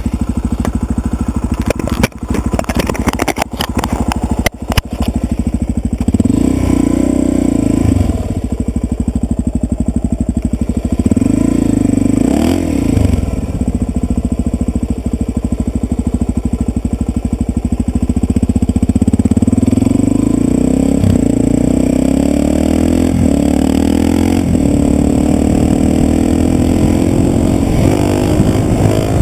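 2011 Suzuki DR-Z400S single-cylinder four-stroke engine with a Yoshimura exhaust, heard on board while riding. It revs up and drops back twice, then pulls with a steadily rising pitch, accelerating through the second half. A burst of clattering knocks comes in the first few seconds.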